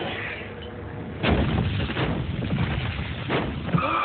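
Car-chase soundtrack: a low vehicle rumble, broken about a second in by a sudden loud bang, with a couple more sharp knocks after it.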